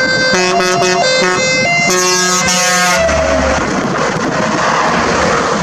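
DAF 75-270 fire engine's siren and horn sounding in steady tones that switch quickly between several pitches. About three seconds in, the pitch drops as the truck passes, leaving diesel engine and tyre noise as it drives away.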